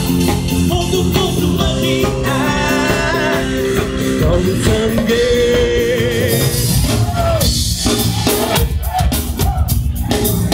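Loud music with a singing voice over a dense beat, growing more percussive about halfway through.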